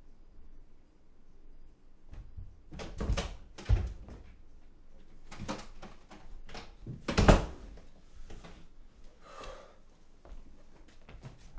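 A string of irregular knocks and thuds, spaced unevenly, the loudest about seven seconds in.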